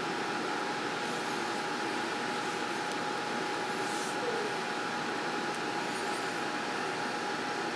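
Steady background hiss with a faint, constant high-pitched hum.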